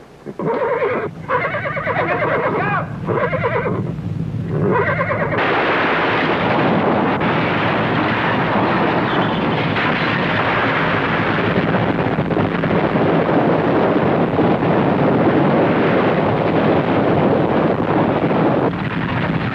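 A horse whinnying several times. About five seconds in, a long, loud rumbling and crashing noise takes over: an earthquake sound effect of buildings collapsing.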